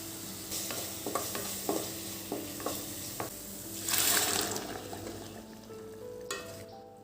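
A steady hissing sizzle with a series of light knocks, like a utensil against a pan, and a louder burst of hiss about four seconds in. Soft background music plays under it.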